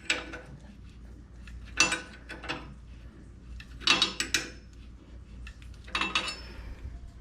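Sharp metal clanks and clinks in short clusters about every two seconds, each with a brief ringing tail, over a low steady hum.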